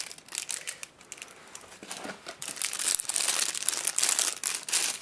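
Thin clear plastic bag crinkling as a camera battery is worked out of it by hand, light at first and busier in the second half.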